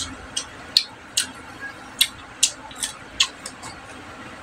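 Close-up eating sounds: wet lip smacks and mouth clicks from chewing soft kinunot and rice, short sharp smacks at irregular spacing, about two a second.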